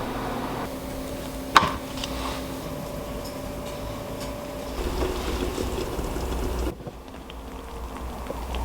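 Kitchen cooking sounds: a sharp clack of a utensil against cookware about a second and a half in, then liquid bubbling and being stirred in a pot, cut off abruptly near the end.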